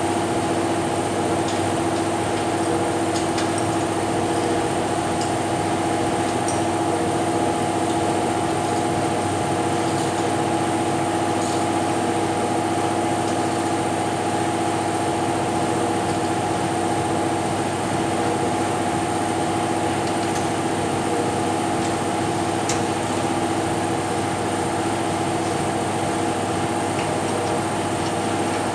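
Steady mechanical hum of a motor running at constant speed, with several fixed tones and no change in pitch or level. A few faint light clicks of hand tools on the engine mount bolts sound over it.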